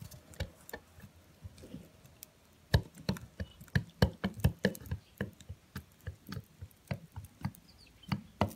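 Irregular light clicks and knocks of small metal parts of a petrol brushcutter engine being handled and fitted together during assembly. They come sparsely at first and grow busier about three seconds in.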